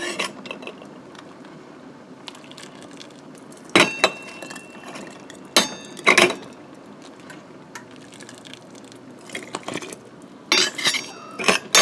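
Stainless steel ladle clinking against a stainless canning funnel and glass jar as soup is ladled in: a few sharp clinks with a short metallic ring about four and six seconds in, then a quick run of clinks near the end.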